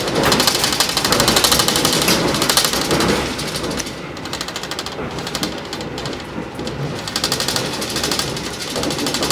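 Passenger train of 2016 INKA K1 coaches running: a dense, rapid rattling clatter over a rushing noise, louder for the first few seconds and then easing.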